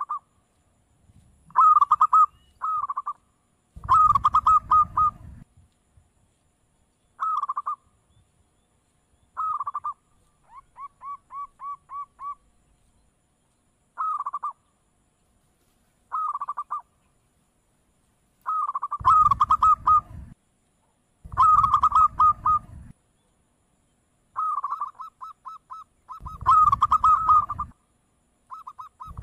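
Zebra dove (perkutut) cooing: about a dozen short phrases of quick, rapidly repeated notes with pauses between them, including one softer run of evenly spaced notes a little before halfway.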